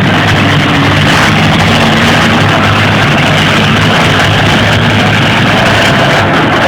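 Demolition derby car engines running, loud and steady.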